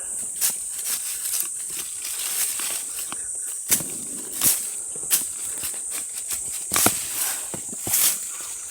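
Digging by hand into stony mountain soil to unearth a wild balloon flower (doraji) root: irregular scraping and sharp knocks, half a dozen of them, over a steady high-pitched buzz.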